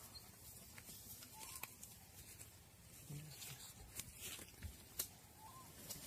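Faint scattered snaps and tearing of a Komodo dragon ripping flesh from a deer carcass, with one sharper crack about five seconds in. A bird chirps faintly twice.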